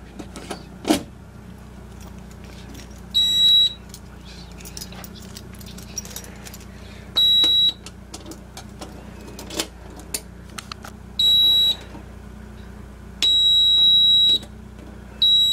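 Chubb Zonemaster 104 fire alarm control panel's internal buzzer beeping on a single high tone: half-second beeps about every four seconds, with a longer beep of over a second near the end. Sharp clicks and knocks from the key in the panel door lock and key switch come between the beeps.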